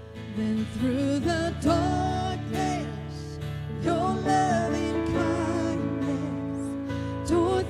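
Live worship band performing a contemporary worship song: voices singing over acoustic guitar and keyboard, the voices coming in just after the start.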